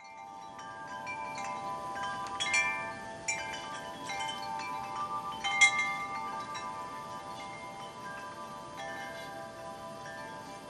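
Metal wind chimes ringing, struck irregularly, with several tones overlapping and sustained and two sharper clangs about two and a half and five and a half seconds in.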